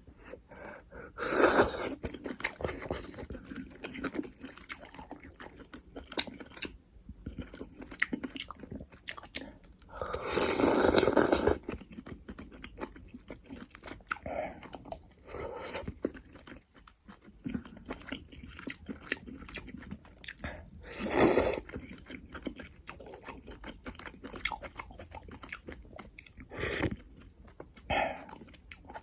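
Close-miked eating sounds of a person chewing beef and sausage stew: steady wet chewing and mouth clicks, with a few louder bursts about 1.5 seconds in, around 10 to 12 seconds, and near 21 and 27 seconds.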